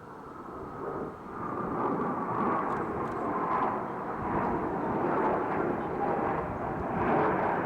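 Jet noise from Blue Angels F/A-18 Hornets in flight, growing louder over the first two seconds as the jets approach, then holding loud. A faint whine slides slowly down in pitch under the roar.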